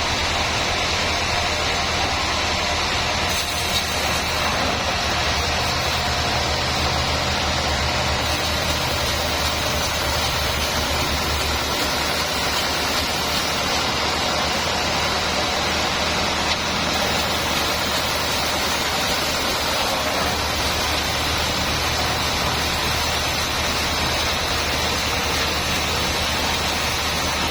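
Sawmill machinery running steadily: a low engine hum under an even, loud hiss.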